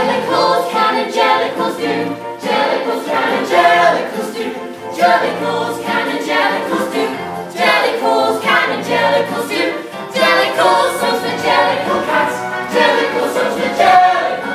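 An ensemble of many voices singing together in a choral passage, with music.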